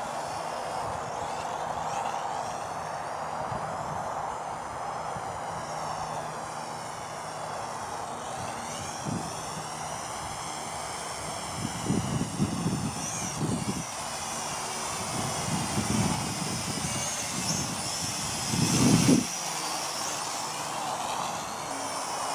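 DM009 quadcopter's small electric motors and propellers whining, several pitches weaving up and down together as the throttle changes. Irregular low buffeting rumbles come in the second half, the loudest about nineteen seconds in.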